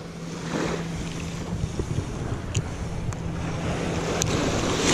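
Wind buffeting the microphone over the wash of seawater, with a steady low hum underneath and a few faint clicks; the wind noise swells near the end.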